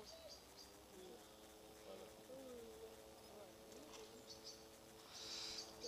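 Near silence: faint outdoor ambience with a few soft high ticks and a brief hiss near the end.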